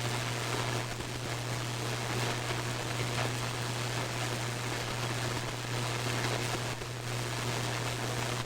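Radio receiver static picking up a thunderstorm: a steady hiss over a constant low hum, with faint crackles, the brief static of lightning discharges.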